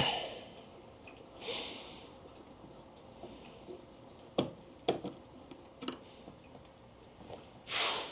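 Scattered small clicks and knocks of a Phillips screwdriver and the plastic turn-signal housing being worked on, with two short rustling bursts, the louder one near the end.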